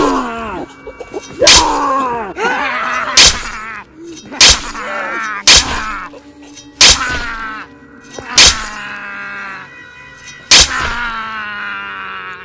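A young man screaming and groaning, about eight cries in a row, each opening with a sharp hit, over a faint held music tone.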